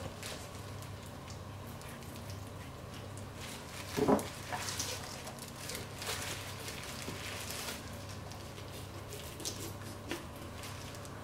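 Wet handling and knife work on a whole redfish on a plastic cutting board: scattered scrapes, small clicks and squelches, with one louder thud about four seconds in as the fish is turned over. A low steady hum runs underneath.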